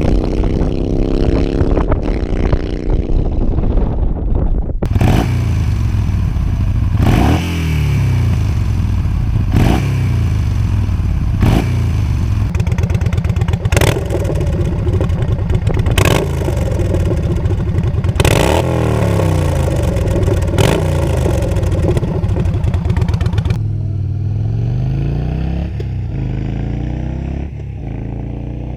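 Yamaha Bolt's air-cooled V-twin running on the road: the exhaust note climbs and drops repeatedly as the bike accelerates and changes gear. About 23 seconds in it eases off, the pitch falls, and the sound fades.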